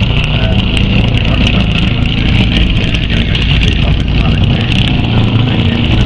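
Subaru Impreza WRC rally car's turbocharged flat-four engine running loudly as the car moves slowly by, with many quick crackles over the steady rumble.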